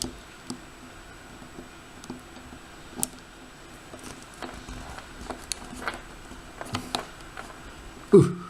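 Scattered light metal clicks and scrapes from a small tool working at a lock's push-in-and-unscrew back, trying to get it off.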